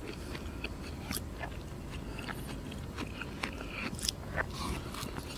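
Close-up eating sounds: someone chewing a spoonful of mashed potato and fried chicken, with irregular wet lip smacks and mouth clicks.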